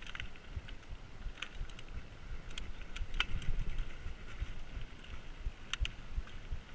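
Mountain bike riding down a dirt singletrack: wind buffeting the camera microphone and tyres rumbling over dirt and roots, with scattered sharp clicks and rattles from the bike.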